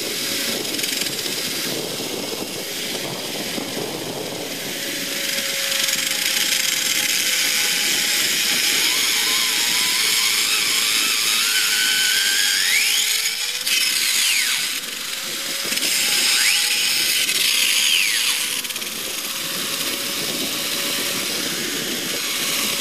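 Angle grinder's disc grinding into a steel rail: a loud hiss of the cut over a steady motor whine. About halfway through, and again a little later, squealing sweeps rise and fall in pitch as the grinder's disc starts to slip on its spindle.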